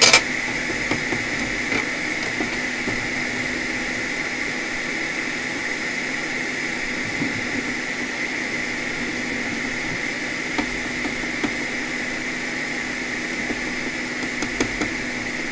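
Steady hiss and hum of a hot air rework station's airflow, with a constant whine over it. It opens with a brief, sharp spray hiss as alcohol is sprayed onto the hot board; a few faint ticks follow.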